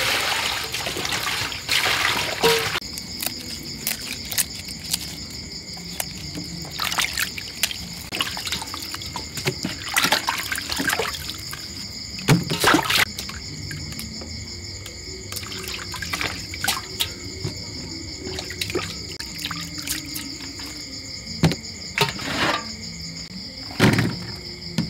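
Water poured from a plastic dipper, splashing and trickling in a stainless steel bowl as vegetables and mushrooms are washed by hand, with scattered clatters of plastic colanders against the bowl. A steady high-pitched chirring of night insects runs underneath.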